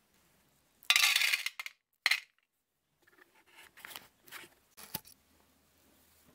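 Small loose metal parts clinking and rattling: a loud rattle about a second in and a short one just after two seconds, then a run of faint clicks and scrapes.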